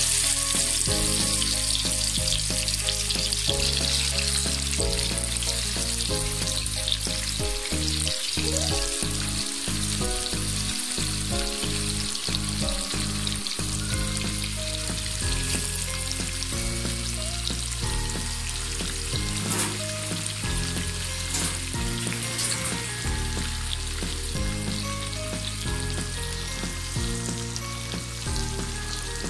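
Hilsa fish steaks shallow-frying in hot mustard oil: a loud sizzle as they go into the pan, easing a little after the first few seconds into a steady sizzle. Background music plays underneath.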